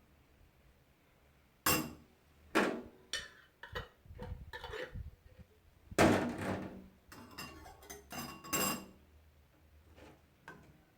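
Utensil clinking, knocking and scraping against a bowl while mayonnaise is added and mixed into potato salad. There are a few separate knocks, the loudest about six seconds in, with scraping in between.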